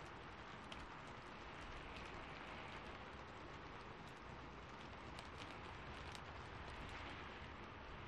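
Soft, steady rain hiss with scattered faint ticks through it.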